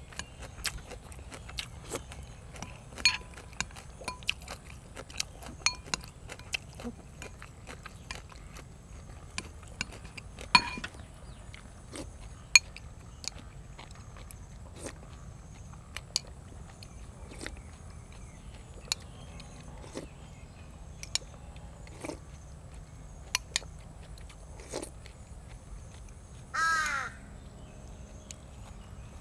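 Scattered sharp clicks and smacks of eating, irregular and several seconds apart. Near the end a crow caws once.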